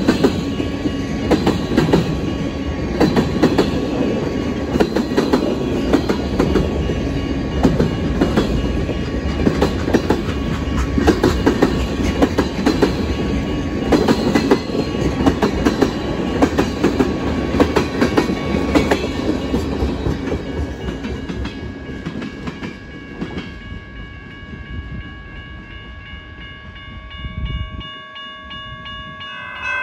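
Freight train cars rolling past, steel wheels clicking rhythmically over the rail joints. The sound fades away over the last several seconds as the train moves off.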